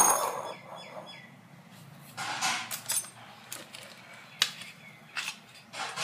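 A bowl is set down on a hard counter with a loud clink that rings briefly, followed by scattered knocks, clicks and rustles of handling.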